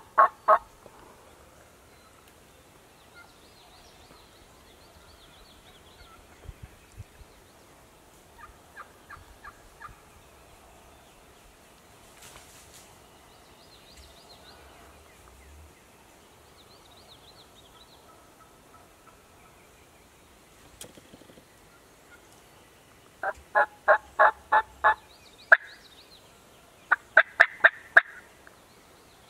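Turkey yelping: runs of evenly spaced notes, about four a second. There is a brief run at the start, a faint short run about nine seconds in, and two loud runs near the end. Faint small-bird chirps can be heard in between.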